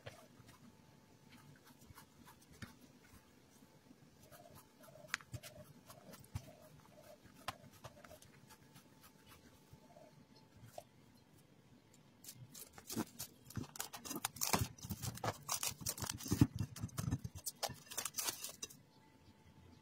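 Hands kneading soft bread dough on a glass tabletop: faint sticky clicks and pats, turning much louder and busier about twelve seconds in as the dough is worked and handled, until just before the end.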